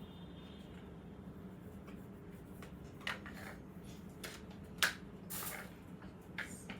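Faint rustling and a few light clicks and knocks from flat-pack drawer parts being handled, with a short rustle about five seconds in, over a steady low hum.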